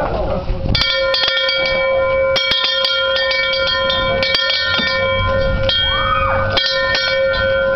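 A large bell struck repeatedly at an uneven pace, about seven strokes, each one leaving several overtones ringing on.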